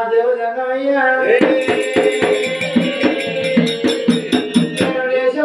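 Oggu katha folk singing: a voice sings a phrase, then holds one long note while fast, sharp percussion strokes beat about six times a second for some three seconds. The strokes stop near the end and the voice goes on alone.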